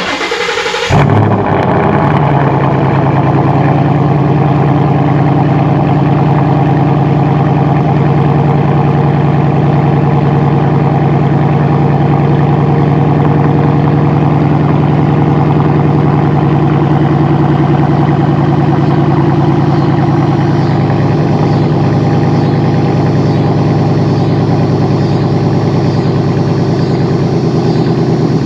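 Ford Mustang's 5.0 L Coyote V8 catches about a second in and settles into a steady idle.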